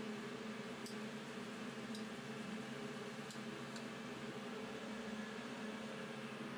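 Steady machinery hum of a ship's engine room, made of several steady tones over a constant noise, with a few faint ticks in the first half.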